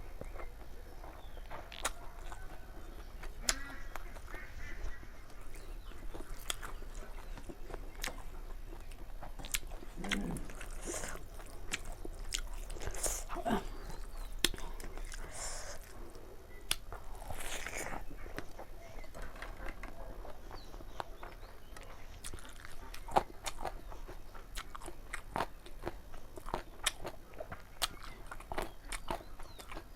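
Close-up sounds of a person eating chicken curry of liver, feet and gizzard: steady chewing and biting with many sharp clicks and crunches. A few longer, hissing mouth sounds come between about ten and eighteen seconds in.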